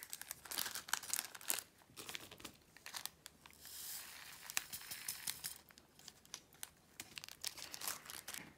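Small plastic baggie of diamond-painting drills crinkling as it is handled, with many light, quick clicks scattered through.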